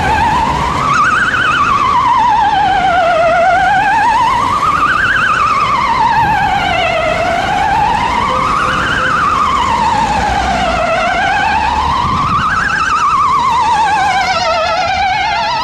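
Ambulance siren with an unusual tone: a slow wail rising and falling about every four seconds, with a fast warble on top. A second siren joins near the end.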